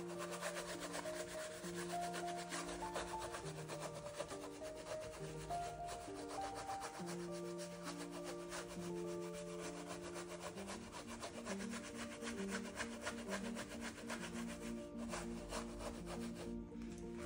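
Wide bristle paintbrush scrubbing acrylic paint across a rough painting surface in quick repeated strokes, easing off near the end. Soft background music of slow held notes plays underneath.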